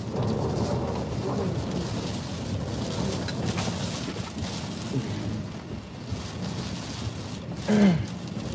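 Hurricane rain and wind beating on a car, heard from inside the cabin while the windshield wipers run. Near the end, a brief louder sound that drops in pitch.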